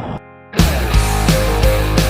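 Rock music starts abruptly about half a second in, after a brief quiet gap: a loud, full band sound with a heavy low end.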